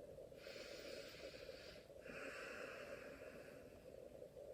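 A person taking a slow, deep breath, faint: a long airy inhale of about a second and a half, then a long exhale.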